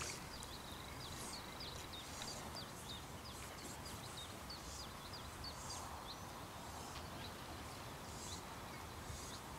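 Quiet riverside background with a small bird calling over and over: many short high chirps, thinning out in the second half.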